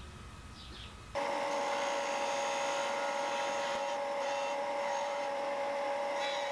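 Bench disc sander running with a steady whine and a sanding hiss as a small block of hard maple is held against the spinning disc to taper it. The sound starts abruptly about a second in, after quiet room sound.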